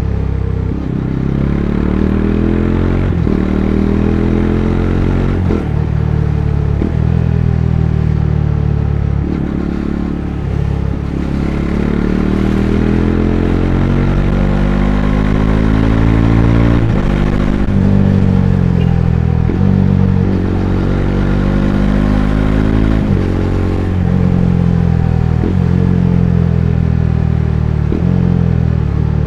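Bajaj Dominar 400's single-cylinder engine heard from onboard, accelerating repeatedly. The pitch climbs and drops sharply at each gear change, with a couple of stretches where it falls away as the bike eases off and slows.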